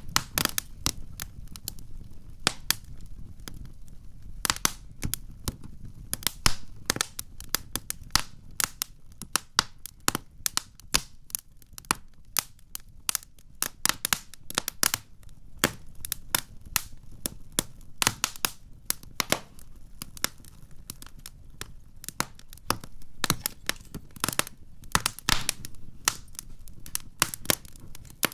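Campfire burning: wood crackling with frequent, irregular sharp pops over a low, steady rush of the flames.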